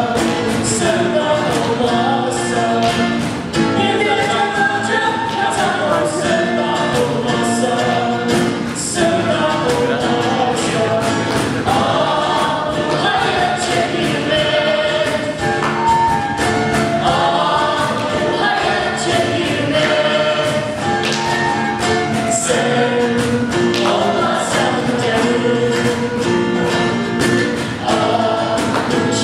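A group of voices singing a Turkish song together, with a steady beat running under the singing.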